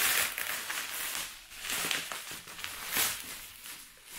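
Plastic bubble wrap crinkling and rustling as it is handled and pulled at, in irregular swells with a few small crackles.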